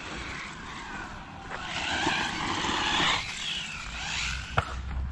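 Electric 1/12-scale 4WD RC desert buggy driving on a dirt track toward a jump: motor whine and tyre noise get louder about two seconds in, then ease off. A single sharp knock comes near the end.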